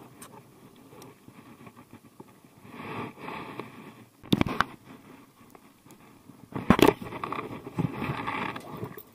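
Rustling and scraping handling noise, with two sharp, loud knocks about four and about seven seconds in.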